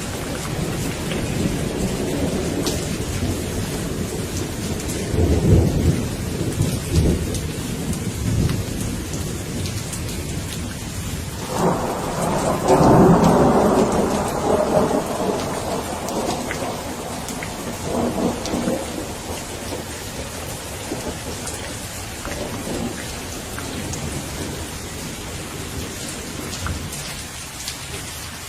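Steady rain falling, with rolling thunder: low rumbles several seconds in, then a louder peal about twelve seconds in that rolls on and fades over several seconds, and a weaker rumble later.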